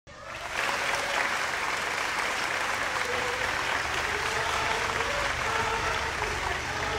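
Audience applauding, with held musical notes starting to come in under the clapping about halfway through.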